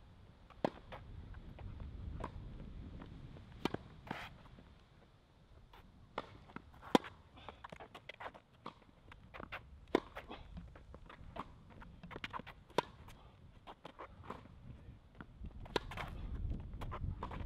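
Tennis balls struck by rackets during a rally: sharp pops every second or few seconds, with footsteps on the court and a low rumble between the hits.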